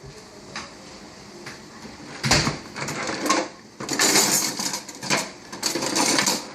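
Kitchen clatter of utensils and dishes being handled: a sharp knock a little over two seconds in, then clicks and two spells of scraping.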